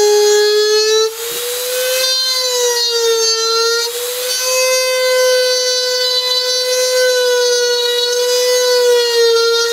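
Dremel rotary tool running with a steady high whine, its pitch wavering slightly as the bit grinds a control-horn slot into the composite skin of a hollow molded aileron. A rasping grinding noise comes in about a second in and again around four seconds.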